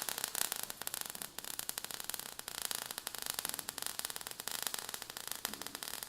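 Faint crackling static: a dense run of small, irregular clicks with no steady tone.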